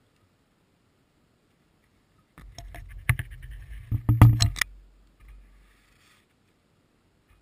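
A gray squirrel nosing and clambering against the camera: scratchy clicks and muffled knocks of its claws and body on the camera, starting about two and a half seconds in, with the loudest knocks in a cluster around four seconds.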